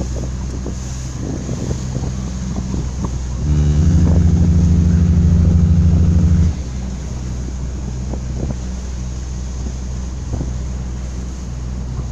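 Small motorboat's engine running steadily with wind on the microphone and water slapping against the hull. About three and a half seconds in, a loud, low horn blast of steady pitch sounds for about three seconds and cuts off abruptly.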